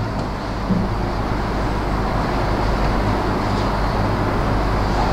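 Steady background noise: an electrical mains hum under a constant rumbling hiss, with no distinct ball clicks or impacts.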